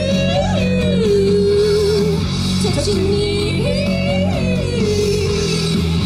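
Live singing through a stage PA over amplified backing music. The voice holds long notes, climbing to a high one and sliding back down, twice.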